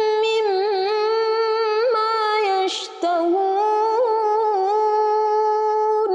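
A woman reciting the Quran in melodic murottal style in maqam bayyati, holding long, ornamented notes, with a brief break near the middle.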